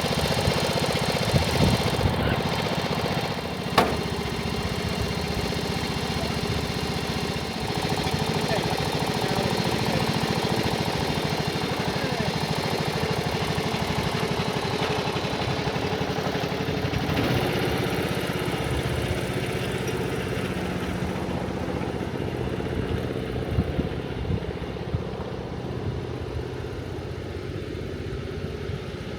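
Engine of a second-hand ride-on lawn mower running steadily at idle, having just started after being cleaned and its battery recharged. A single sharp knock about four seconds in.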